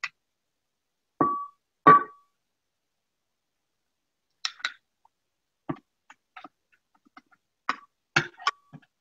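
A metal spoon clinking against glass as tomato sauce is spooned from a glass measuring cup into a glass baking dish. There are two loud ringing clinks about a second in, then scattered lighter taps and scrapes, with one more ringing clink near the end.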